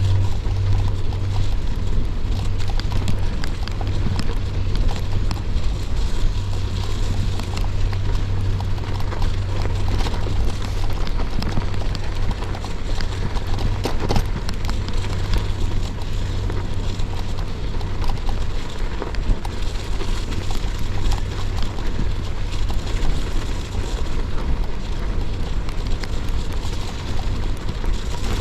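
Gravel bike tyres crunching steadily over a snowy, icy path, with a constant low wind rumble on the camera microphone.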